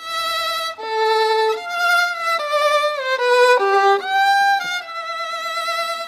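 Solo violin playing a short melody with vibrato, about a dozen notes stepping up and down, the last one held.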